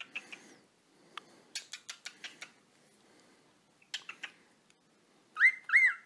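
Cockatiel making short soft clicks through the first couple of seconds and again about four seconds in, then two loud, arching chirps in quick succession near the end.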